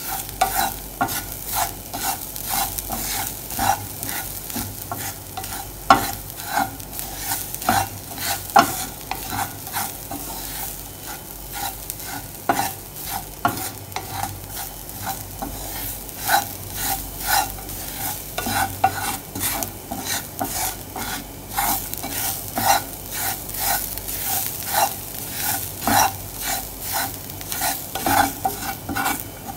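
Wooden spatula stirring and scraping freshly grated coconut around a non-stick pan in quick repeated strokes, over a steady soft sizzle as the coconut's water cooks off.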